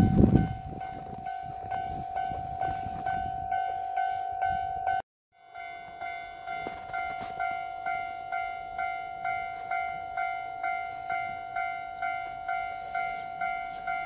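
Japanese railway level-crossing warning bell: an electronic ding sounding in even pulses about twice a second, warning of an approaching train. A brief low rush comes at the very start, and after a short break about five seconds in the bell goes on at the same beat.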